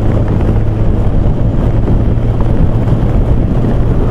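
Yamaha XJR1200 inline-four engine running steadily at highway speed, with heavy wind noise buffeting the microphone.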